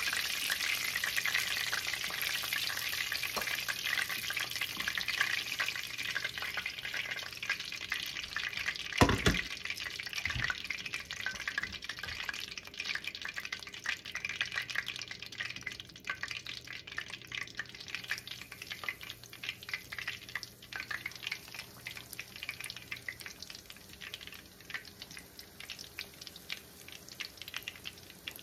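Battered chicken pieces deep-frying in hot oil in a stainless steel skillet: a steady crackling sizzle that slowly fades. A low thump comes about nine seconds in and a smaller one a second later.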